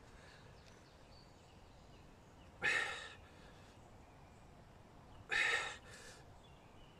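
A man's heavy exhalations, twice about two and a half seconds apart, from straining with his full body weight to lever a knife tip buried in dry oak.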